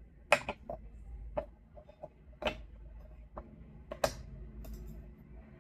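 Scattered light clicks and taps, seven or so, irregularly spaced, the sharpest just after the start and just after four seconds in: small plastic and metal parts being handled as a replacement ignition coil and its wire are worked into a Stihl MS261C chainsaw's housing.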